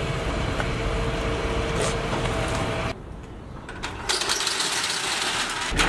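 A low steady rumble, then after a break, the metal slats of a roll-up garage shutter rattling loudly from about four seconds in as it starts to be pulled down.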